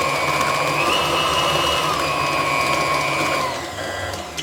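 Electric stand mixer running, beating cookie dough with a steady motor whine. The pitch steps up about a second in, then falls, and the mixer winds down and quietens near the end.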